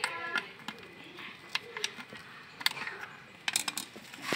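Scattered light metallic clicks and taps of hand tools and small metal parts being handled, with a short rapid rattle at the start and a cluster of clicks about three and a half seconds in.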